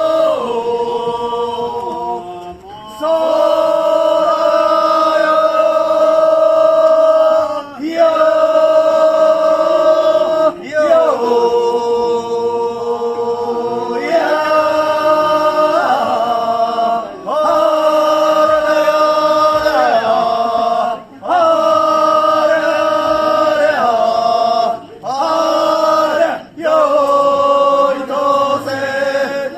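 A group of voices chanting or singing in unison in long, drawn-out held notes that slide between pitches, in phrases broken by short pauses every few seconds.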